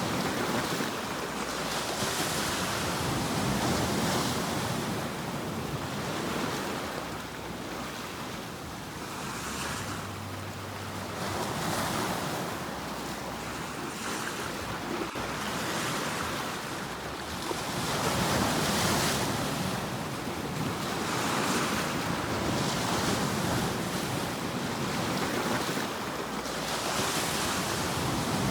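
Ocean waves breaking and washing on a shore, the surf hiss swelling and ebbing every few seconds.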